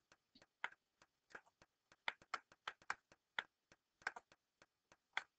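Quiet, irregular light taps and clicks, a few a second, of a stylus on a tablet screen as figures are written by hand.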